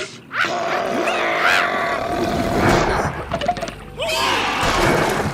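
Cartoon character voices making wordless, gliding vocal noises, with a held note for a couple of seconds and sudden comic sound effects near the start and about four seconds in.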